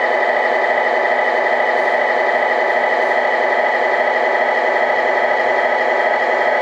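A truck diesel engine idling steadily, an even thin drone with little deep bass.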